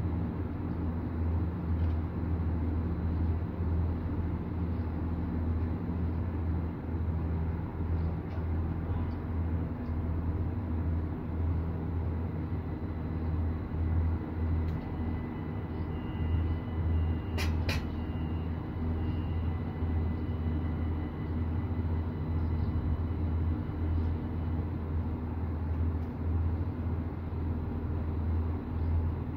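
Stadler GTW diesel train standing with its engine idling: a steady low hum, with two sharp clicks about halfway through.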